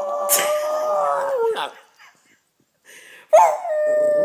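Yorkshire terrier howling: one long, steady howl that drops in pitch and ends about a second and a half in, then after a pause a second howl begins with a sharp start.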